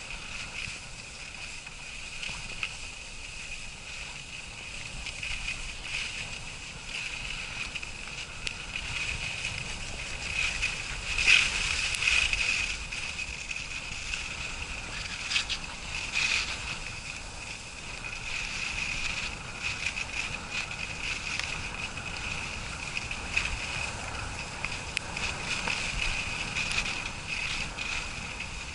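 Skis sliding over snow on a downhill run: a steady hiss, broken by a few sharper scrapes and knocks, the loudest about eleven seconds in and two more around fifteen and sixteen seconds.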